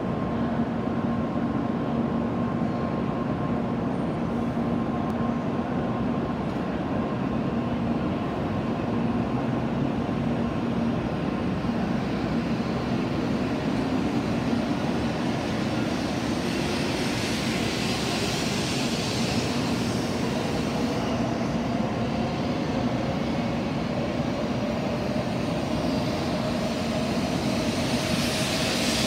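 Shinkansen bullet train pulling out of the station and gathering speed past the platform: a steady rumble with a motor whine that rises in pitch as it accelerates. Louder hissing rushes come in about two-thirds of the way through and again near the end.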